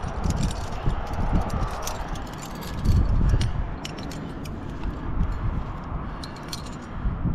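Metal climbing gear, carabiners and cams on a harness rack, clinking and jangling in short irregular clicks as the climber moves, over a low rumbling noise on the microphone.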